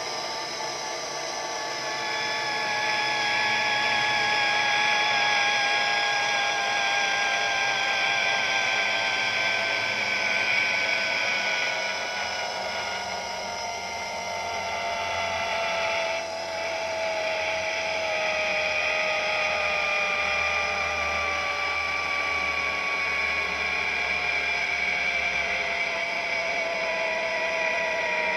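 Zipline trolley pulleys running along the steel cable: a high, whining, several-toned hum that slowly falls in pitch, over a steady rushing noise.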